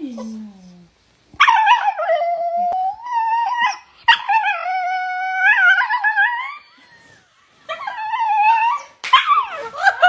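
A dog howling and whining in long, wavering high-pitched cries, three in a row and then a sharper falling one near the end: an upset, complaining outburst.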